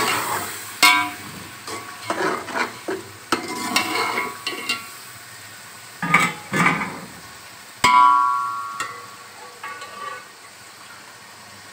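A metal slotted spoon stirs and scrapes beef chunks in a metal pot. The spoon knocks against the pot several times, and some knocks ring briefly, under a soft frying sizzle.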